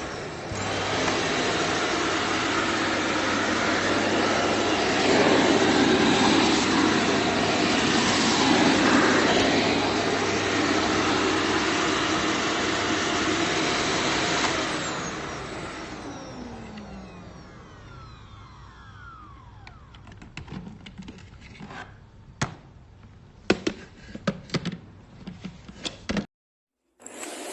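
Kärcher VC3 Plus bagless multi-cyclone vacuum cleaner running with a steady rush of air, then switched off about fifteen seconds in, its motor whine falling in pitch as it spins down. Scattered clicks and knocks follow near the end.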